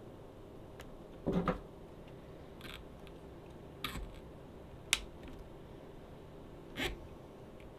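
Hand saddle stitching on thick leather: five short rasps and clicks as thread is drawn through the stitch holes and a small pair of nippers works the stitched edge, with one sharp snip about five seconds in.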